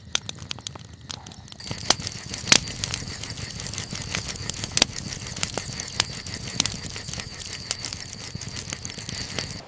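Campfire crackling: irregular sharp pops and snaps, over a steady hiss that grows fuller about two seconds in.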